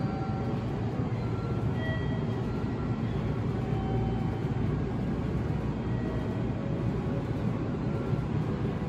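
JR Central 313 series electric train running slowly into the station and passing beneath: a steady low rumble of wheels and motors, with a few faint, brief high tones.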